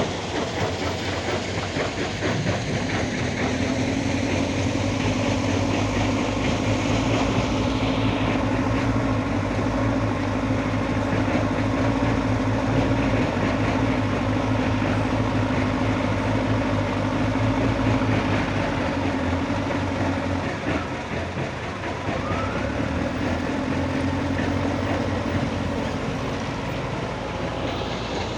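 Diesel engine and machinery of a Hitachi excavator working, a steady heavy rumble with a clattering edge; the engine note drops briefly about three quarters of the way through, then picks up again.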